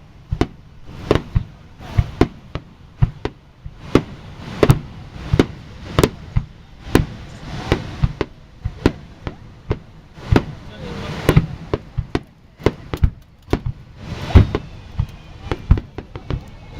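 Aerial fireworks shells bursting in an irregular run of sharp bangs, about one or two a second.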